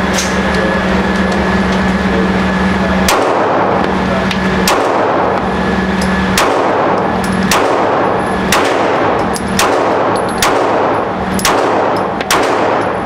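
Glock pistol firing a slow string of about nine shots, roughly one a second, starting about three seconds in. Each shot echoes in the enclosed indoor range.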